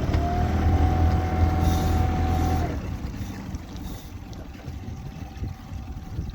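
Boat motor running at higher throttle with a low hum and a steady whine, then easing off about two and a half seconds in to a quieter idle under wind and water noise.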